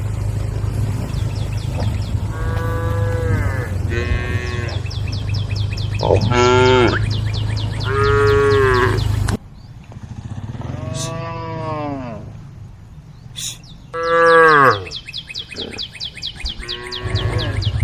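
Cows mooing: about six long, drawn-out moos one after another, the loudest about three-quarters of the way through. Under them runs a steady low engine hum that cuts out abruptly about halfway and comes back near the end.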